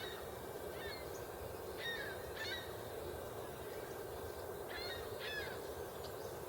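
A bird calling repeatedly, about five short downward-sliding calls, some in quick pairs, over a steady low background hiss.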